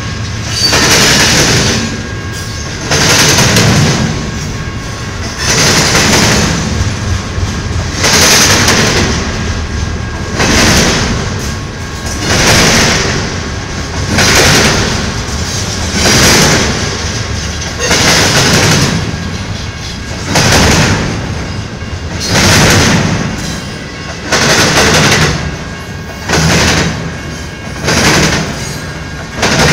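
Double-stack intermodal freight train's well cars rolling past, over a steady low rumble. The wheels make a loud clatter about every two seconds as each set of trucks crosses the rail diamond.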